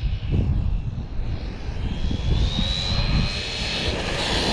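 Losi LMT Grave Digger RC monster truck's brushless electric motor whining at high speed, the whine rising in pitch from about two seconds in as the truck speeds up, over a low rumbling noise.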